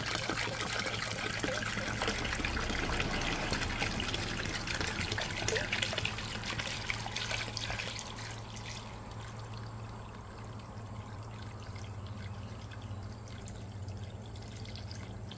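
Water pouring from a jug into a pressure canner used as a water bath canner, splashing over the lids of the filled jars. The pouring is louder for about the first eight seconds, then goes on quieter and duller.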